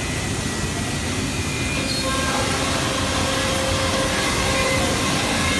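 CNC router's spindle running with its dust extraction as the head travels over the machine bed: a steady machine noise, with a steady whine joining about two seconds in.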